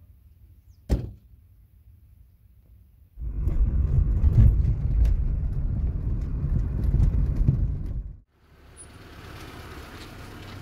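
One sharp thump about a second in, the tailgate of a Lada hatchback being shut. From about three seconds in, the loud low rumble of the car driving, heard from inside the cabin with small knocks from the road, cutting off suddenly near eight seconds; after that the car's engine runs much more quietly.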